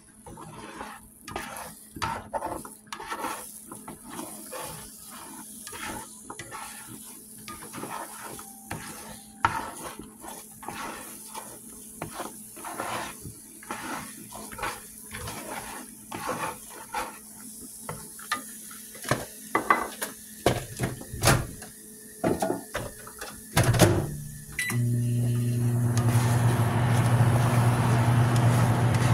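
A metal fork scraping and clicking against a skillet as eggs are stirred, in a long run of short irregular scrapes and taps, with a couple of louder knocks. About 24 seconds in, a steady low machine hum starts and keeps on, joined shortly after by a hiss.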